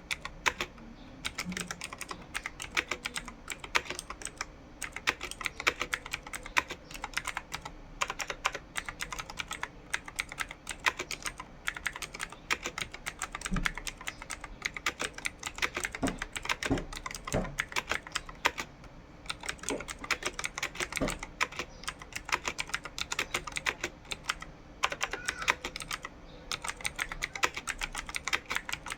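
Typing on a computer keyboard at a steady pace of about 40 words per minute: a continuous, irregular run of key clicks, with a few heavier thumps mixed in, likely the space bar or harder keystrokes.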